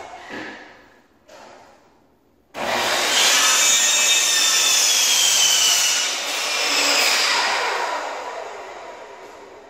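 Electric chop saw starting up about two and a half seconds in and cutting an angled piece of wood trim. The blade then winds down, its pitch falling as the sound fades. A few light knocks of handling the wood come before the cut.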